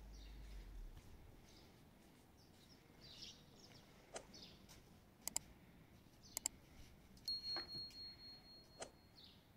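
Faint yard ambience with small birds chirping now and then. A few sharp clicks come around the middle, and near the end a high, steady whistle pulses for about two seconds.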